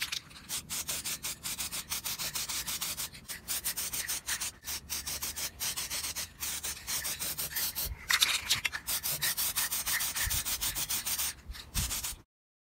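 Hand scrubbing of the rusty cast surface of a 383's timing cover with a brush or abrasive, in quick, even back-and-forth strokes at about three a second. The strokes stop abruptly near the end.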